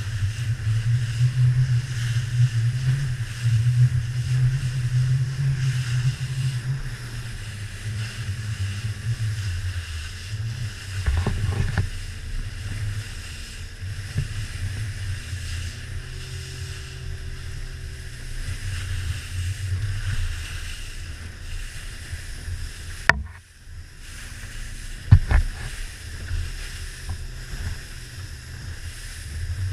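A Joker Clubman 21 RIB's outboard motor running under way through waves, with wind and water hiss on the microphone. The engine is loudest for the first several seconds, then eases off. Two sharp knocks come late on, about two seconds apart.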